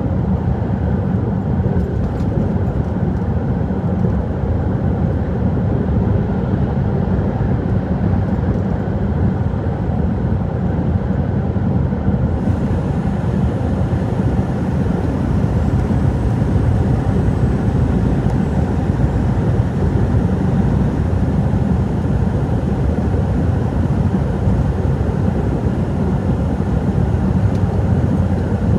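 Truck driving: a steady low drone of engine and road noise with no distinct events.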